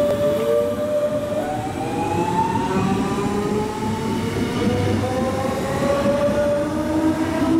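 DB Class 425 electric multiple unit accelerating away from a standstill. Its traction converters give the class's well-known starting sound: a series of rising electric whines, each new one starting lower as the last tops out, over the rumble of the wheels on the rails.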